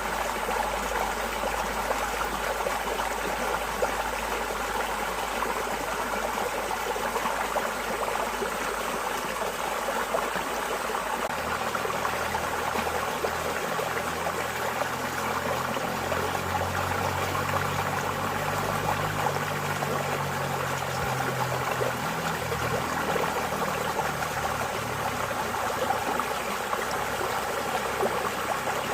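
Running water flowing and trickling steadily, like a small stream, an even rushing with no breaks.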